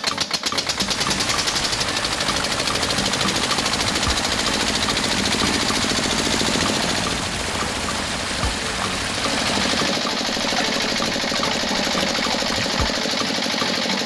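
Small model stationary engine with a flywheel, driving a water pump, just after being crank-started. Its chugs quicken into a fast, even run within the first second and it then keeps running steadily.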